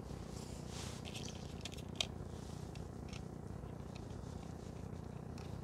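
Faint clicks and scratching of a spike being screwed into the foot of a tripod leg, with one sharper click about two seconds in.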